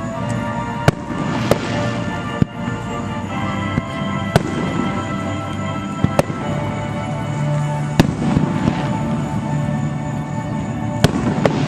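Aerial firework shells bursting in sharp bangs, about every one to two seconds, over music playing.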